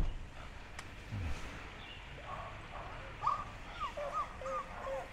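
A dog on a lead whining in a run of short high squeaks that bend up and down, starting about two seconds in and repeating, the eager whining of a dog straining to get going.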